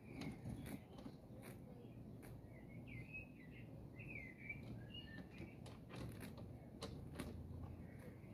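Faint, soft chirping calls of Japanese quail, a few wavering chirps through the middle, with several light clicks scattered among them over a low steady background rumble.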